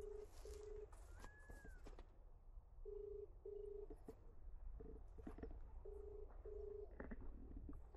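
Telephone ringback tone of an outgoing call: a low, faint double beep, beep-beep, repeating about every three seconds while the called phone rings.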